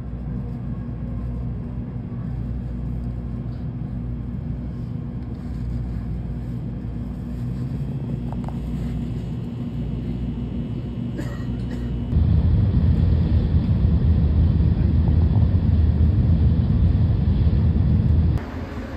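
Train running, a steady low rumble heard from inside the carriage, growing louder about twelve seconds in.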